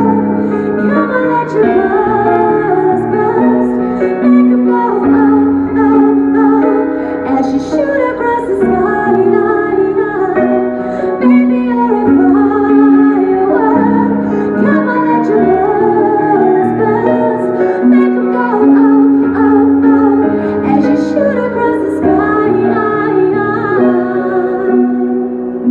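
Woman singing a song over a backing track with piano-like accompaniment.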